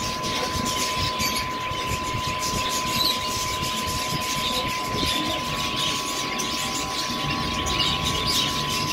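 Steady background hiss with many faint small clicks and a constant high whine that never changes pitch.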